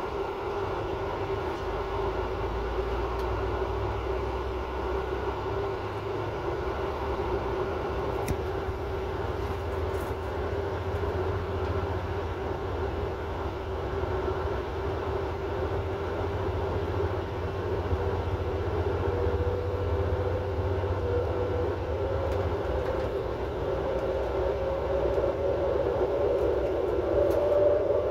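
Regional passenger train running, heard from inside its rear driver's cab: a steady low rumble with a constant whine, joined in the second half by a second whine that rises in pitch as the train speeds up.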